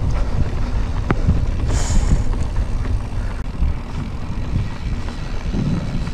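Wind buffeting the microphone while a mountain bike rolls over a dirt track, a steady fluctuating rumble with the odd click and rattle from the bike. A brief hiss about two seconds in.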